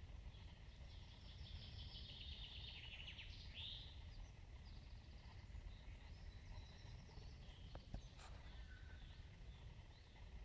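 Faint woodland birdsong: one long, fast descending trill about a second in, then scattered softer calls, over a low rumble of wind noise. A single click about eight seconds in.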